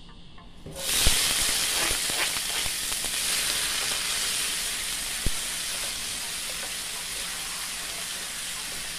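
Chopped onion, tomato, bell pepper, scallion and scotch bonnet pepper hit hot oil in a pot, starting a sudden sizzle about a second in that carries on steadily as they sauté. There is a single knock about five seconds in.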